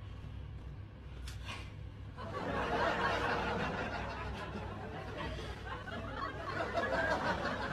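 Quiet stifled laughter and giggling, swelling about two seconds in and again near the end, over a low steady hum.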